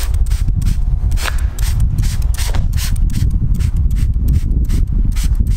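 Trigger spray bottle of Meguiar's ceramic wax being pumped over and over, quick hissing squirts about three a second, misting the product onto wet car paint, over a steady low rumble.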